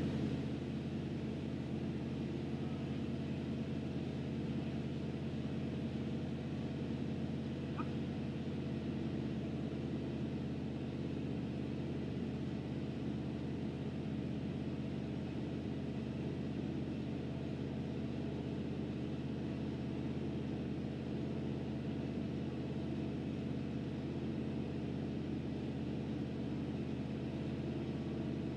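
The 1976 Chevy C65 log truck's engine running at a steady speed, driving the hydraulics of its truck-mounted log loader.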